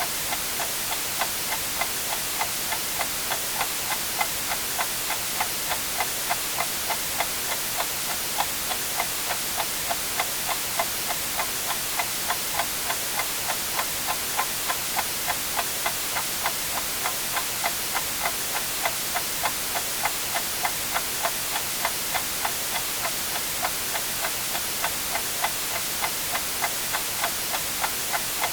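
A clock ticking steadily, about two ticks a second, over a constant, even hiss of white noise.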